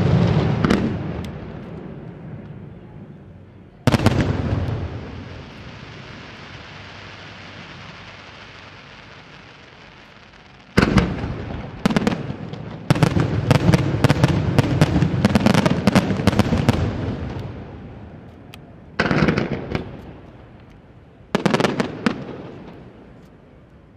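Aerial firework shells bursting. One loud bang about four seconds in trails off slowly. A rapid barrage of bangs follows from about eleven to seventeen seconds, and two more separate bursts come near the end.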